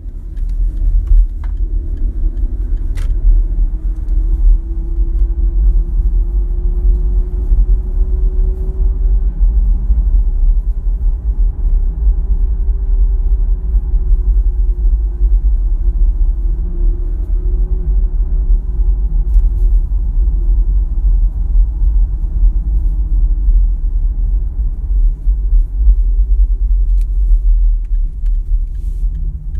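Range Rover Evoque being driven: a heavy low rumble with a thin whine that slowly rises and falls, and a few sharp clicks. The owner records it as an abnormal noise the car makes while driving.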